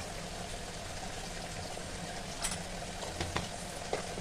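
Onions and spices frying gently in oil in a steel kadhai, a steady sizzle with a few light clicks about two and a half to four seconds in.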